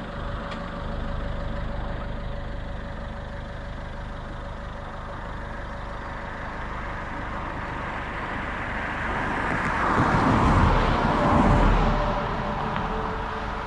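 Camper van engine idling steadily while pulled over. Around ten seconds in, a louder rushing sound swells up and then dies away.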